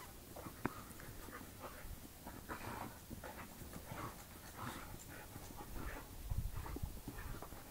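Border collie panting, with short breaths repeating about twice a second. There is a sharp click about half a second in and a low rumble near the end.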